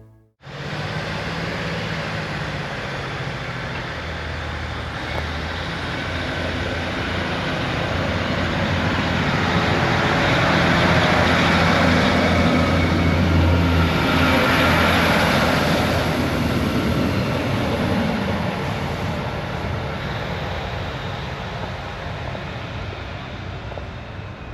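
A train passing: a steady low hum with rushing noise that grows to its loudest about halfway through, then slowly fades.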